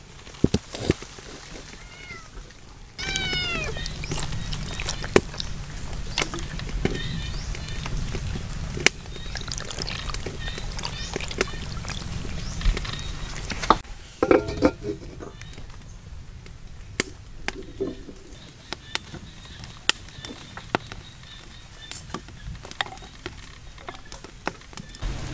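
Wood fire crackling under a wok, with sharp pops throughout; a cat meows about three seconds in.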